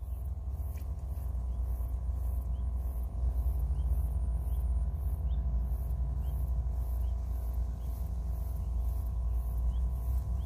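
Steady low rumble, with faint short chirps repeating about every half second.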